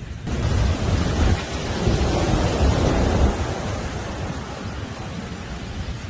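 Rough sea surf breaking and washing up a sandy beach: a steady rush of foaming water with a deep low rumble, swelling to its loudest about two to three seconds in and then easing.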